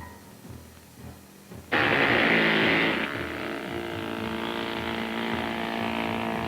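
A powered rescue cutting tool starts abruptly about two seconds in, cutting into the car's roof to free a trapped victim. It is loudest for the first second or so, then keeps running with a steady pitched hum.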